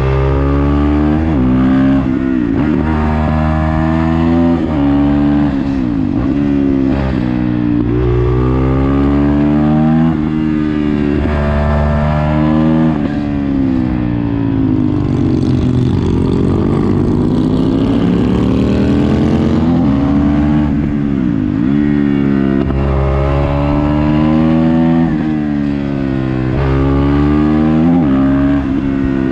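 Motorcycle engine heard from on board, pulling through the gears: the pitch climbs and then drops at each shift, several times over. Near the middle it falls away for a few seconds, with more wind rush, then climbs again.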